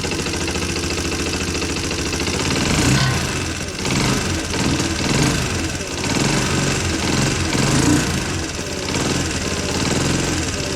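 Freshly rebuilt Honda CT110's small single-cylinder four-stroke engine running just after starting, revved up briefly a few times and dropping back toward idle in between. It starts and runs with a new clutch fitted, after worn, undersized clutch plates had kept it from spinning the crank to start.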